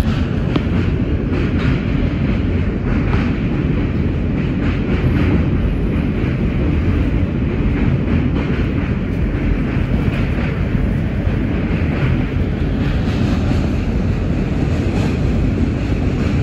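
New York City subway train (M line) running at speed, heard from inside the car: a steady rumble of wheels on the rails with repeated clicks from the rail joints.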